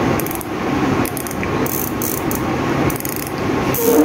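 Spinning fishing reel's drag clicking as line is pulled off the spool: a rapid, uneven ratcheting run. The reel is rated for 20 kg of maximum drag.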